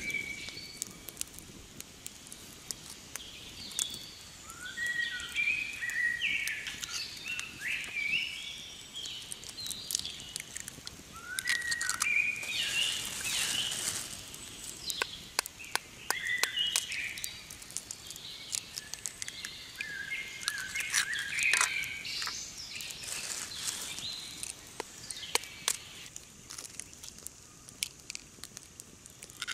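Small birds chirping and singing in clusters of short rising and falling notes. Through it come scattered sharp clicks and taps as chicken eggs are cracked open by hand.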